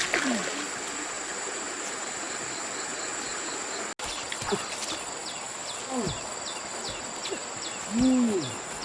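A steady high-pitched insect drone with short chirps repeating about twice a second in the second half. Two brief rising-then-falling calls sound near the end, the second one louder.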